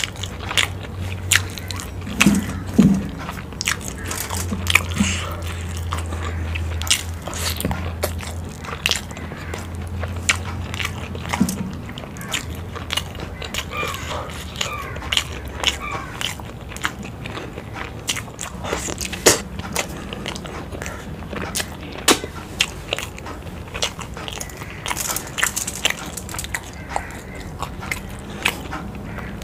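Close-miked chewing and biting of fried boiled eggs coated in spicy curry, with many short wet mouth clicks and smacks. A low hum runs underneath, weaker in the second half.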